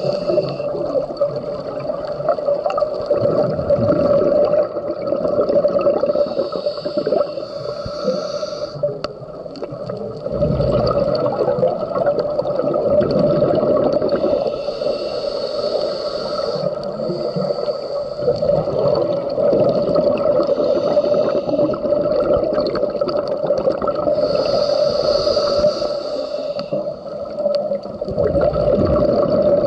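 Scuba breathing heard underwater through a regulator: a hissing inhalation every several seconds, each followed by a rumble of bubbles on the exhale. A steady droning tone runs underneath.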